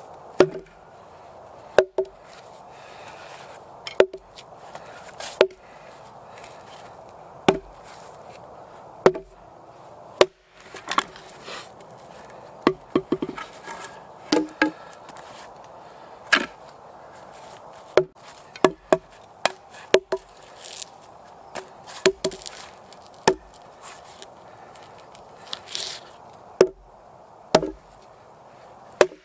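Hatchet chopping and splitting firewood on a chopping log: sharp single chops every second or two, with a run of quick cracks from splitting wood about halfway through.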